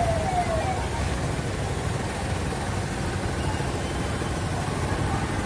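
Steady low engine drone of a portable motor pump running and pumping out floodwater, with street traffic.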